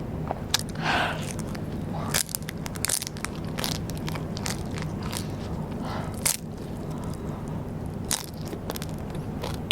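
Close-miked eating of rice-paper snacks: irregular crisp crunches and bites as the food is chewed, over a steady low background hum.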